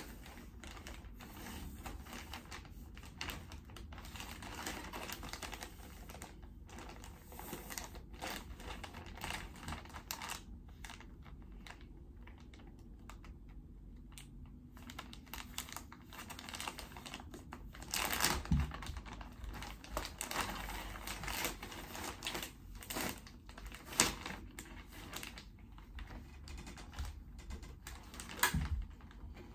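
Clear plastic clothing bag crinkling and crackling as it is handled and opened, in quick irregular crackles, with a few louder rustles in the second half.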